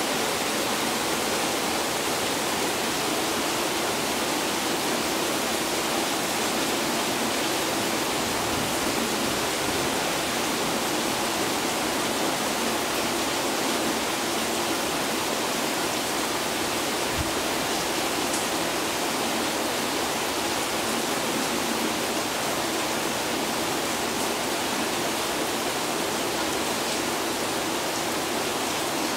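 Heavy tropical rain falling in a steady downpour: an even, unbroken hiss.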